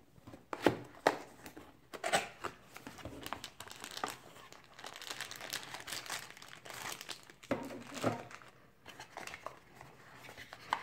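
Packaging rustling and crinkling as a cardboard camera box is opened and the camera, sealed in a clear plastic bag, is pulled out of it, with a few sharp clicks and taps, two of them close together in the first second.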